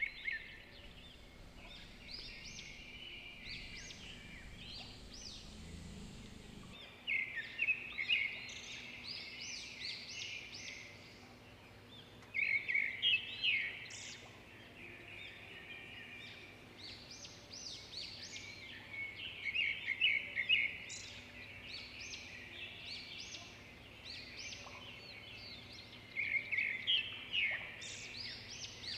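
Birds chirping and singing, with phrases of quick repeated notes returning every six or seven seconds and softer chirps in between. A low rumble underlies the first seven seconds or so.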